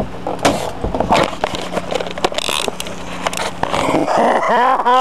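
Handling noise as the camera is picked up off the boat's railing: knocks, taps and scraping over a steady low hum that stops a little before the end. Near the end a man's voice starts a long, drawn-out yell.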